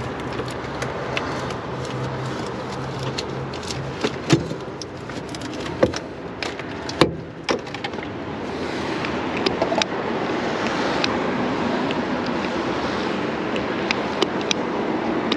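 Steady hiss of rain with a few sharp metallic clicks and knocks from hand tools about four to seven and a half seconds in. A low hum under the first half stops about eight seconds in, and a louder rushing noise fills the rest.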